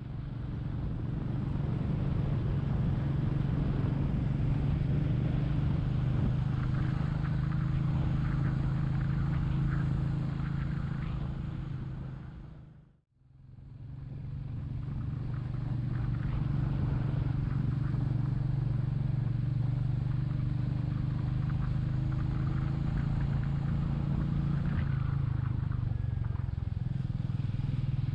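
Royal Enfield Meteor 350's single-cylinder engine running steadily while riding. The sound fades out and back in once about halfway through.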